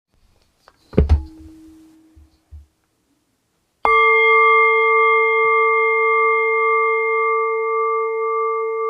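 A couple of sharp knocks with a brief, faint ring about a second in. At about four seconds a bell is struck once and rings on loud and steady, with several clear, unevenly spaced tones, the lowest one strongest.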